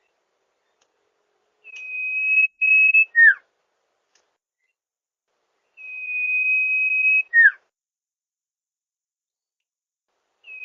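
Song of the bird called sirpu or sirdung by Indonesian bird keepers, played as a lure call: a long, steady, high whistle that swells in volume and ends in a quick down-slurred note. It comes twice, the first time with a short break in the whistle.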